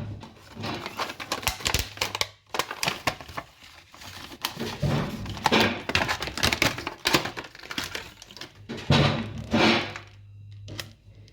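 Handling noises from a self-cleaning pet brush and its plastic parts: irregular crinkling with many sharp clicks and knocks.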